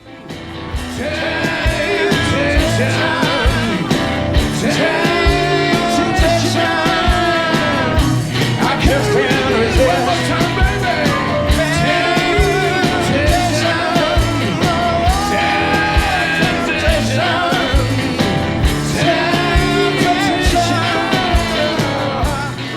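A song performed with singing over instruments and a steady low drum beat.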